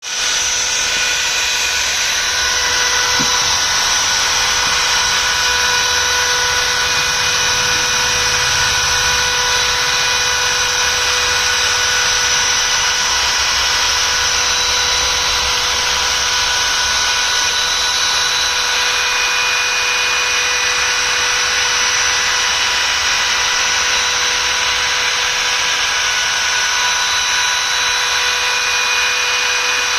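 CNC engraving machine's spindle running steadily while engraving a logo: a steady high whine over an even hiss.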